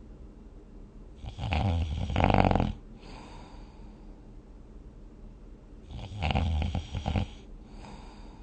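A sleeping person snoring: two loud, rattling snores about five seconds apart, each followed by a softer breath.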